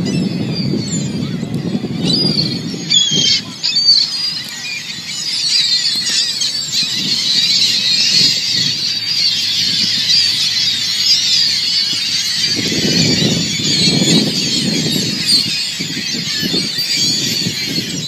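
A large flock of gulls calling all at once, a dense high-pitched chorus of squealing cries, the birds massed in a feeding frenzy over dumped bread. Low rumbles sound underneath near the start and again about two-thirds of the way through.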